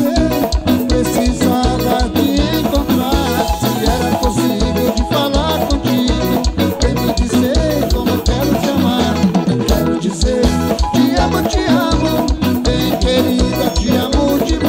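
Live lambadão dance-band music: a fast, steady drum beat with bass and melody instruments.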